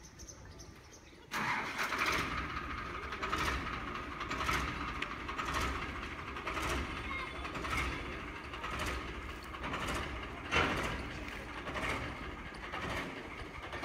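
A machine cuts in abruptly about a second in and keeps running steadily, with a regular beat about once a second.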